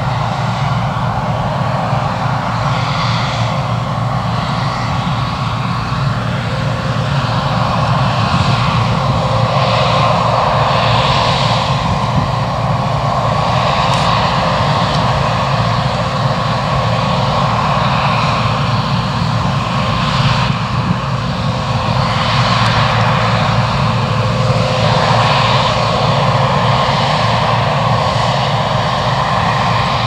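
Steady diesel engine drone of farm machinery at work: a JCB 4220 tractor pulling a grain trailer, then a John Deere 670i combine harvester cutting wheat. A continuous low hum with a hiss over it.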